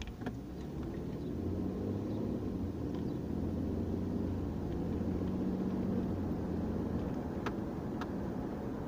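Car engine and tyre noise heard inside the cabin while driving, a steady low hum that grows a little louder about a second in. Two faint clicks near the end.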